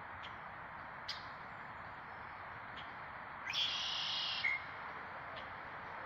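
Red-winged blackbird song: a short note leading into a buzzy trill about a second long, about three and a half seconds in. A few brief high call notes come before and after it.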